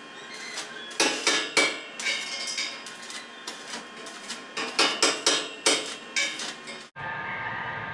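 Stick (arc) welding on a stainless steel tube handrail joint: the arc crackles with sharp, irregular pops, several a second. It stops abruptly about seven seconds in.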